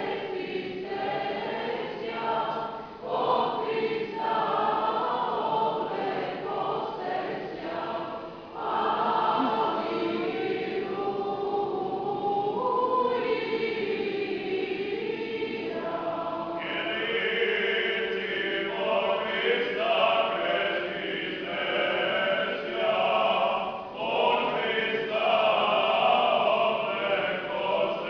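Choir of Orthodox nuns singing liturgical chant a cappella, the voices carrying on without a break. A little past halfway the singing grows brighter and fuller.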